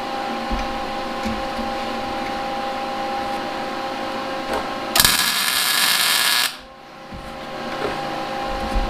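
A MIG welder arcs once, about five seconds in, for about a second and a half: a loud crackling hiss as a weld is laid on the pipe fitting of the burner injector. A steady hum with two steady tones runs beneath it.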